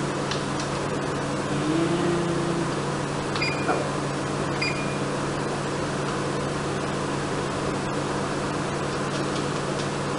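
Two short high electronic beeps about a second apart, a few seconds in, as a kitchen timer is set for the 60-minute boil, over a steady low hum and hiss.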